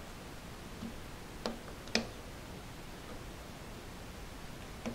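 A few light clicks and handling noises as small plastic cable-retainer pieces are pressed into place over a ribbon cable, the loudest click about two seconds in.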